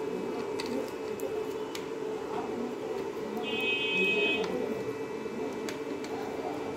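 Home-built IGBT electric-fishing inverter and its cooling fan running with a steady electrical hum and faint high whine, powered from a 12 V battery with the power turned low. A few light clicks, and a brief higher-pitched buzz lasting about a second from roughly three and a half seconds in.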